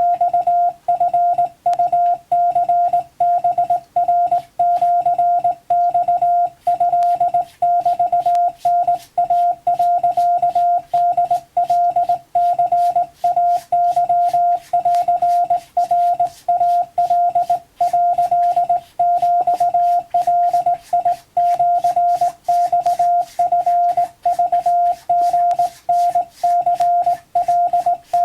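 Morse code (CW) tone of about 700 Hz keyed in an unbroken stream of short and long elements: Japanese wabun telegram text sent for receiving practice.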